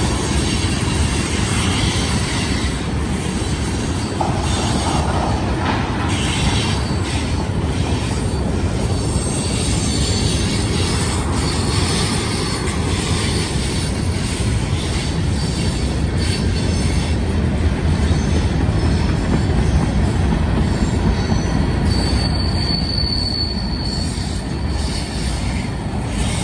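Loaded freight cars rolling past on a curve: a steady rumble and clatter of steel wheels on the rails, with high wheel squeals from the flanges. One clear squeal holds for about two seconds near the end.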